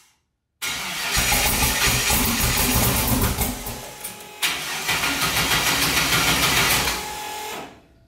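Starter cranking a 5.3-litre LS V8 at low cranking speed without it firing, with a short break about four seconds in. The engine won't catch on the Microsquirt's untuned stock base file, whose injector size, engine size and fuel and ignition maps are still wrong.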